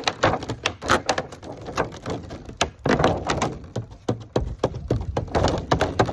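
Thin plastic container being pierced to make holes, a rapid, irregular run of sharp clicks and crackles from the plastic.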